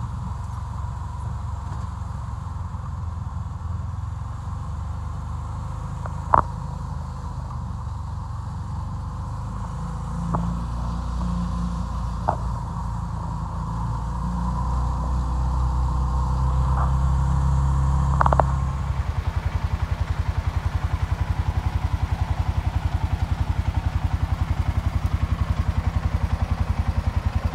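Motor vehicle running with a low engine rumble and a few sharp knocks and rattles. About two-thirds of the way through, the rumble changes to a fast, even throb that holds steady.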